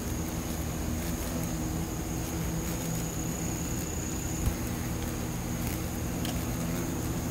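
Steady low buzzing drone of Asian giant hornets' wings, with a faint steady high whine above it and a single soft knock a little past the middle.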